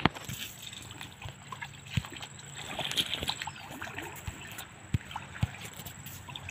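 Footsteps wading through shallow river water, sloshing and splashing step by step, with a few sharp knocks along the way.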